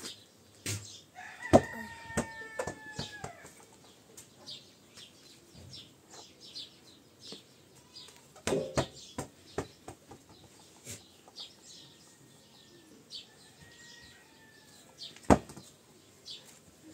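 A plastic ball thrown down onto packed earth, landing with a few sharp thuds. Between the thuds a rooster crows, once clearly about two seconds in and once more faintly later, and small birds chirp.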